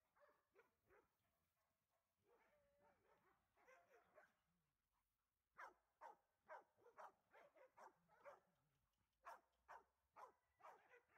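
Several dogs barking faintly in quick runs of short barks, first about halfway through and again near the end, with softer wavering yips before.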